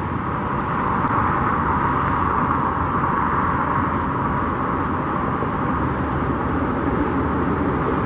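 Steady traffic noise: a continuous rush of tyres and engines with no single vehicle standing out and no breaks.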